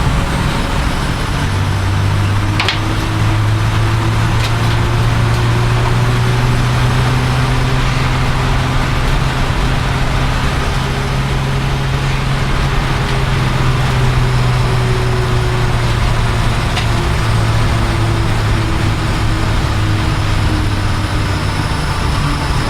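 A vehicle engine running at a steady speed: a low hum that drifts slightly up in pitch and then back down, over a bed of broad noise with a few faint clicks.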